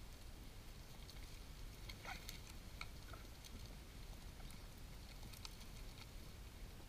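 Faint, scattered clicks and rustles from a flock of griffon vultures crowding at a feed, with a short burst of louder clicks about two seconds in, over a low steady rumble.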